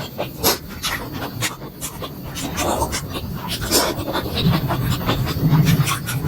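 Close-miked eating sounds of momo dumplings being chewed: a string of wet mouth clicks and smacks with heavy breathing. A low steady hum joins about four seconds in.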